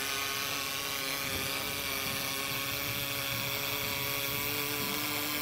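Seam welder running along an aluminium pontoon tube seam: a steady welding hiss with a steady hum underneath.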